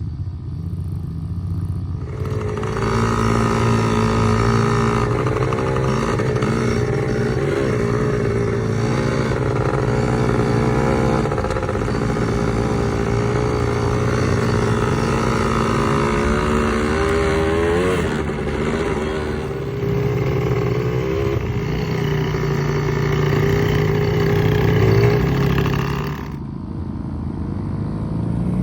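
A small vehicle engine running, its pitch wavering up and down with the throttle. It gets louder about two seconds in and drops back near the end.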